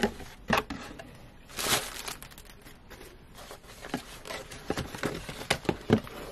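Plastic packaging crinkling and rustling in irregular bursts as items are lifted out of a cardboard shipping box, with a longer rustle about two seconds in and a couple of sharp taps near the end.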